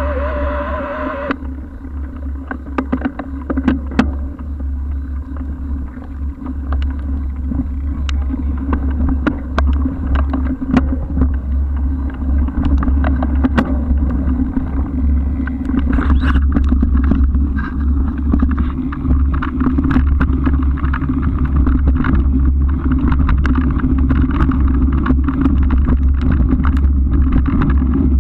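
Wind buffeting a camera mounted on a moving bicycle, a steady low rumble, with scattered clicks and rattles from the bike over the ground that grow busier in the second half. A music track cuts off about a second in.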